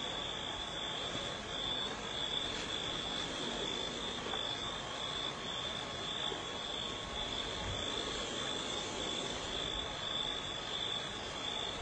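Steady night chorus of calling insects and frogs: a continuous high trill over an even hiss.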